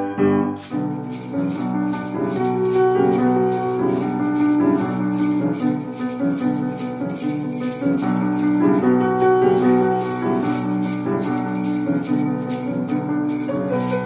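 Handheld jingle bells shaken in a steady rhythm, starting about half a second in, over piano accompaniment.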